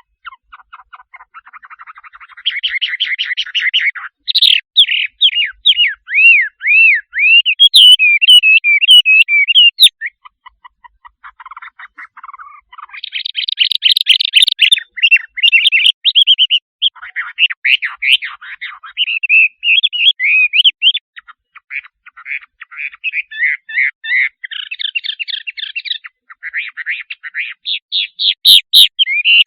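A shrike singing a loud, varied song: rapid trills, sharp chirps and swooping whistled notes follow one another without a break, the pattern changing every second or two.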